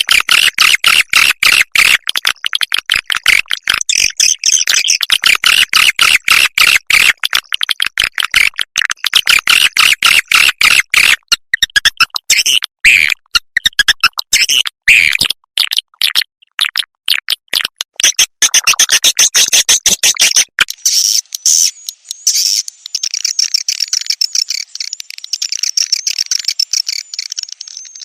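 Recorded swiftlet calls, the lure track for calling young swiftlets: a dense stream of rapid chirps and clicks. About twenty seconds in, the lower part drops away, leaving a thinner, higher twittering.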